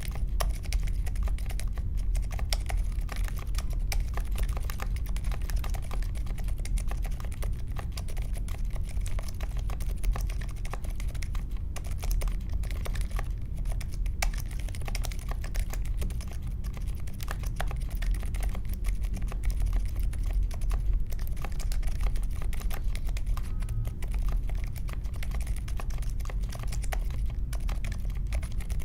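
Continuous fast typing on a mechanical keyboard with unlubed Akko CS Vintage White linear switches in an aluminium case with foam and tape mods: a dense, steady stream of keystroke clacks.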